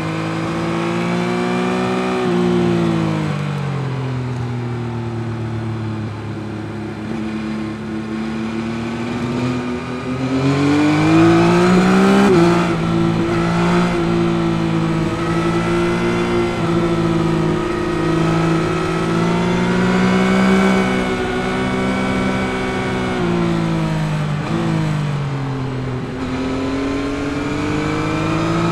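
2021 Yamaha MT-09's 890 cc CP3 inline-three engine under riding load, heard from the rider's seat. Its pitch climbs and falls as the throttle is opened and rolled off, with a quick gear change about twelve seconds in and another near the end.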